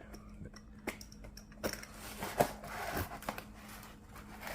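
A butterfly knife working at the package: scattered light clicks and scrapes, with some crinkling. The blade is dull and is not cutting easily.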